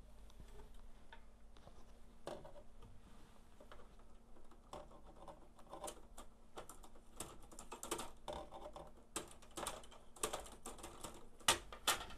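Metal forceps holding an alcohol-wetted cloth clicking and scraping against the plastic inside an HP Laser 107w printer's paper slot while the pickup rollers are wiped. The clicks are irregular, sparse at first and busier from about five seconds in, the loudest near the end.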